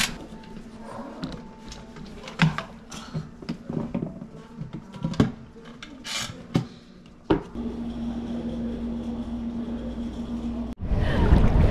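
Scattered light knocks, clicks and rubbing sounds, then a steady low hum with a single held tone from about seven seconds in. Near the end the hum cuts off abruptly and is replaced by a loud rushing noise.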